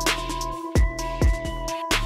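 Electronic background music with a beat: deep bass kicks that drop in pitch and sharp percussion hits over sustained synth tones.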